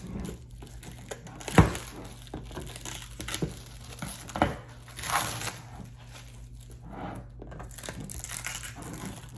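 Packaging crinkling and rustling as items are unpacked by hand, with a few sharp knocks, the loudest about one and a half seconds in.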